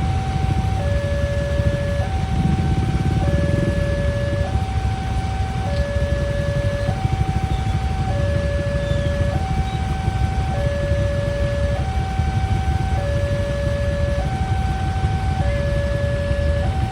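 Railway level-crossing barrier alarm sounding a two-tone electronic siren that switches between a higher and a lower pitch about every second, over a steady low rumble.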